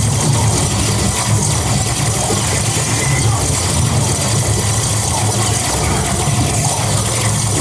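Interactive shooting dark ride in operation: a loud, steady low rumble with a constant hiss above it from the ride's screen-game audio and machinery.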